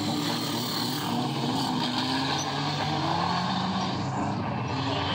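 Engines of several banger-racing cars running hard as they come round a bend of a dirt oval, their notes rising and falling over a steady wash of noise.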